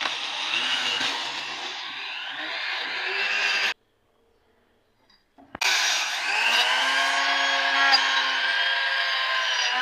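Handheld electric buffing tool running against a rusty car AC compressor housing to clean the rust off. It cuts off abruptly a little past a third of the way in, then about two seconds later spins up again with a rising whine and runs steadily under load.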